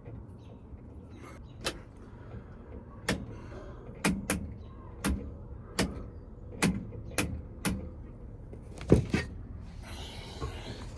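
About a dozen sharp, irregularly spaced clicks as the new turn signal switch is screwed down and worked into place on a 1980 Chevy C30 steering column. A brief rustling noise follows near the end.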